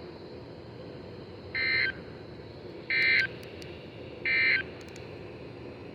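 Three short bursts of EAS data tones from a NOAA Weather Radio, each about a third of a second long and about 1.3 seconds apart: the end-of-message signal that closes a weather alert. A steady radio hiss runs underneath.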